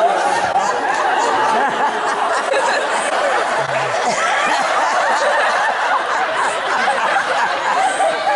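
A large audience laughing and chattering at once, a steady mass of many overlapping voices.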